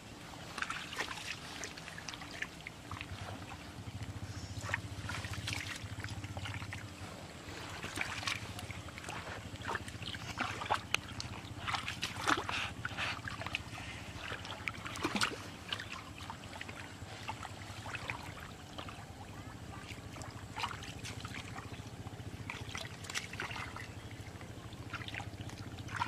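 Hands and feet sloshing and squelching in shallow muddy water, with many short, irregular splashes. A low steady hum runs underneath from about three seconds in.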